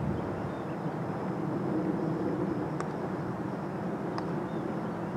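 Steady low drone of distant engine noise, with two faint sharp clicks, about three and four seconds in.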